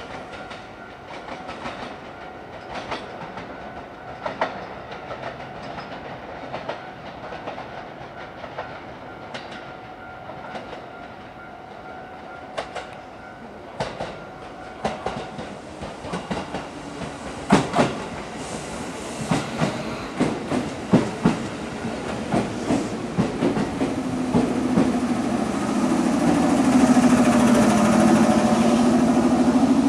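JR 205 series electric train arriving at the station, its wheels clicking over the rail joints and growing louder as it nears. Near the end, as the cars draw alongside, a steady hum from the train comes up.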